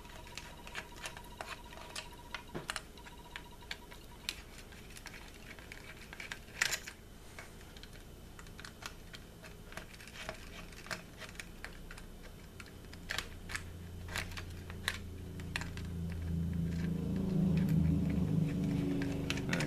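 Small irregular clicks and taps of a screwdriver and fingers working tiny screws out of a plastic drone frame. A low hum builds over the last few seconds.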